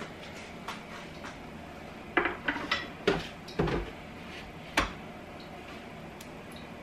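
Kitchen clatter: about six knocks and clinks of utensils and dishes being handled, bunched together between about two and five seconds in.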